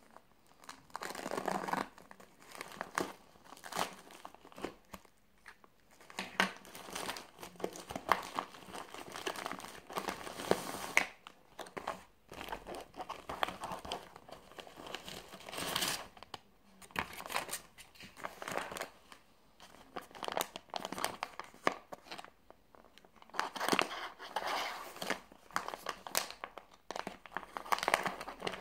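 Plastic courier mailer and paper packaging being opened and handled: crinkling and tearing in irregular bursts with short pauses between them.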